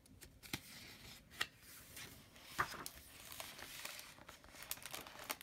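Faint handling of a picture book: a few light taps and clicks and a soft rustle of paper as the page is turned.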